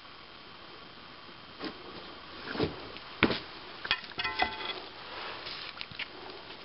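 A handful of sharp knocks and clatters, the loudest about three seconds in, with a brief ringing tone just after four seconds and a few lighter clicks after it.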